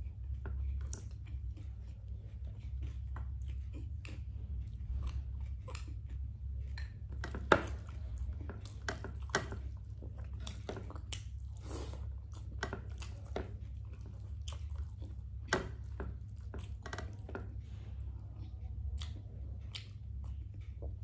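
A person chewing and biting food at close range, with irregular crunches and wet mouth clicks, over a steady low hum. A sharp click stands out about seven and a half seconds in.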